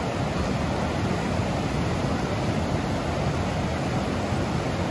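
Fast white-water river rushing over rocks, a steady, unbroken rush of water.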